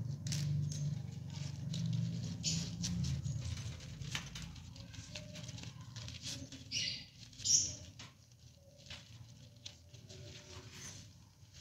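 Budgerigar scratching and shuffling about in a clay pot nest box, many small claw clicks and scrapes, with a low rumble over the first few seconds. About seven seconds in come two short, high chirps.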